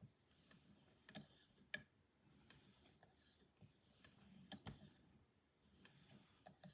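Near silence, with a few faint scattered clicks and soft scuffs.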